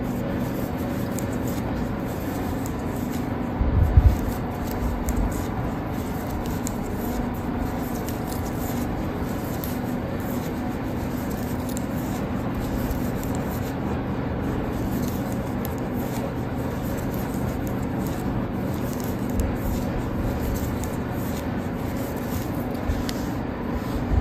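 A steady low hum and hiss, with faint rubbing and scraping of plastic knitting needles working yarn, and a low thump about four seconds in.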